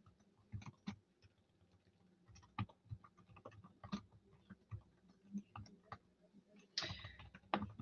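Faint, scattered clicks of computer keyboard typing, with a brief louder rustle near the end.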